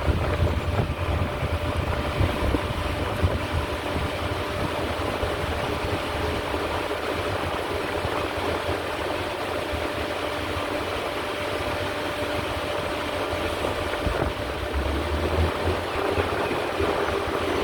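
Steady low mechanical rumble with a faint steady hum over it; near the end a second tone slowly rises in pitch.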